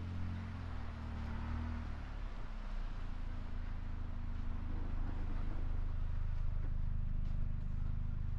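Low, steady mechanical drone with a pitched hum, its upper tone wavering during the first couple of seconds and the whole sound growing slightly louder toward the end.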